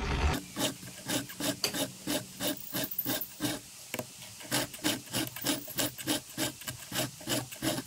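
Round chainsaw file rasping across the cutters of a Stihl chainsaw chain in a file guide. It makes a quick, even run of short strokes as each cutter is sharpened by hand.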